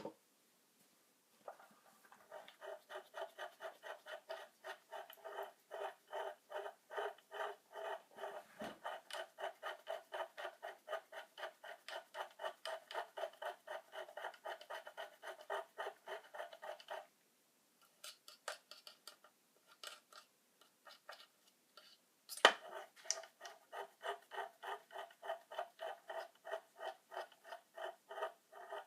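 Repeated scraping or rubbing strokes, about three a second, in a steady rhythm. They stop for a few seconds in the middle, then start again after a sharp click.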